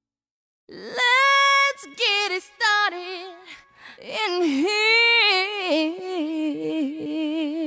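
A woman's voice singing unaccompanied with a wavering vibrato, coming in just under a second in: a few held phrases, higher at first and then settling lower.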